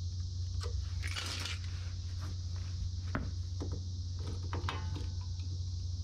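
Light metallic clicks, clinks and a brief scrape as small locking pliers work the spring and shoe hardware of a car's rear drum brake. Under them runs a steady high-pitched cicada chorus and a low hum.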